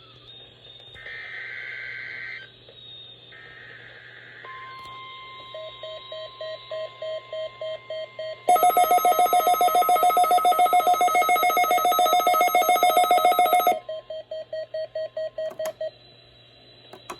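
NOAA Weather Radio weekly alarm test. Two short bursts of warbling SAME data tones are followed by the steady 1050 Hz warning alarm tone. Weather alert receivers set off by the test beep: a slower beep about twice a second, then from about eight seconds in a loud, rapid, shrill beeping for about five seconds, before the slower beep returns.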